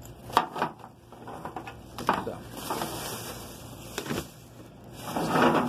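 Plastic action figures being handled and set down: a few separate light knocks and clicks, with a stretch of soft rustling in the middle.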